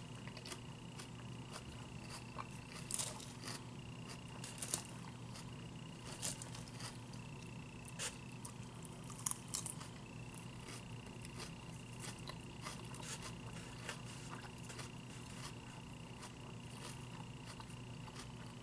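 A person chewing salad with the mouth closed: scattered small crunches and clicks, a few louder ones in the first half. A faint steady hum and high whine lie underneath.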